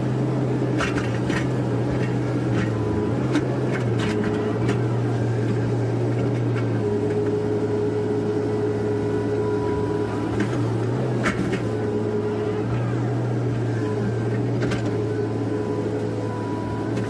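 Komatsu PC130F excavator running steadily under load as it digs, with a hydraulic whine that comes and goes as the arm and bucket move, and a few short knocks.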